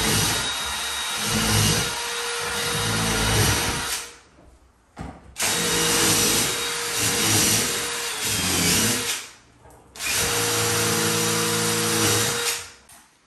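DeWalt cordless impact driver driving screws into white closet cabinet panels, in three long runs with short pauses about four and nine seconds in.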